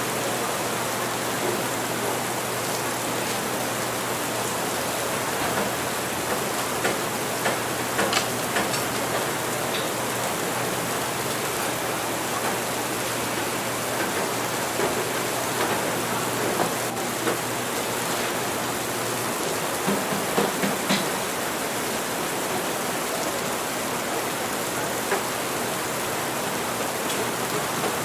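Steady rain, with scattered small clicks over it and a low hum underneath that stops about two-thirds of the way through.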